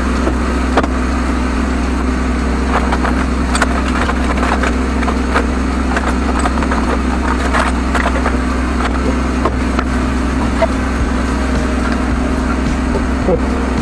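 Engine of a high-pressure sewer jetter running steadily at a constant speed, with scattered light clicks and knocks as the hose reel is handled.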